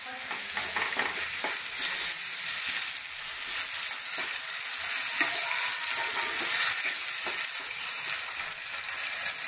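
Chopped vegetables with sauces sizzling in a kadai, a steady frying hiss, while a wooden spatula stirs and scrapes through them in irregular strokes.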